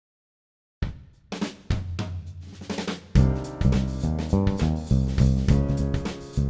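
Background music with a drum kit and bass starting from silence about a second in, with a few separate drum hits before the full band comes in at a steady beat about three seconds in.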